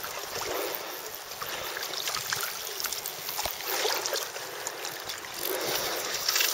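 River water rushing and lapping, a steady hiss.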